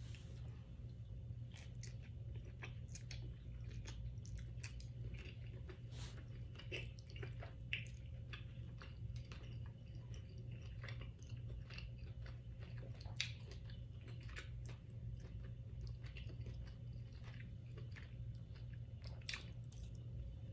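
Close-miked chewing of soft food (pepper steak and vegetables): many small, irregular mouth clicks and smacks with no words, over a steady low hum.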